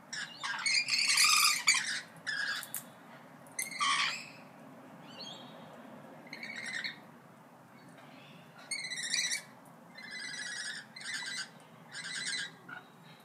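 Parrots squawking and calling: loud harsh squawks in the first two seconds and again about four seconds in, then a run of short repeated calls with rich overtones from about nine seconds on.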